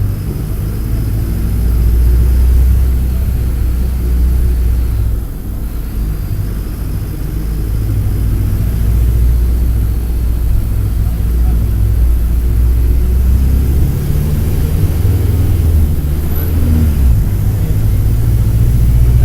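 Mercedes-Benz OF-1722M bus's OM-924 LA four-cylinder turbodiesel running under way, a deep steady drone that drops off briefly about five seconds in and again later, then builds back up as the bus pulls.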